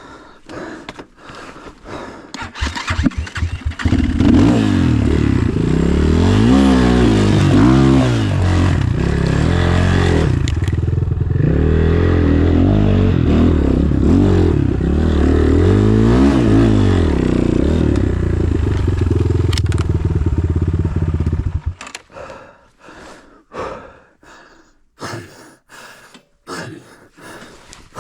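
Off-road enduro motorcycle engine revving, its pitch repeatedly rising and falling for about eighteen seconds, then cutting off suddenly. Before and after it there are scattered knocks and scrapes.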